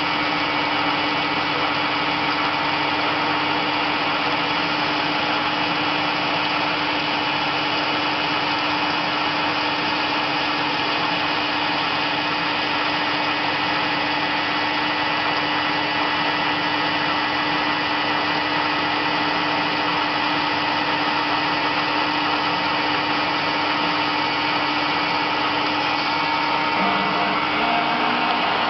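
A 320 × 750 CNC lathe cutting a metal part under flood coolant: a steady running noise of the spindle and cut, with a constant hum beneath it.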